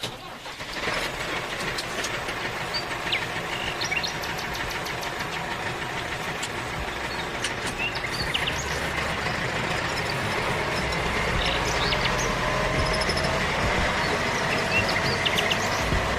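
A small motor running steadily with a noisy hiss, a faint whine and scattered light clicks.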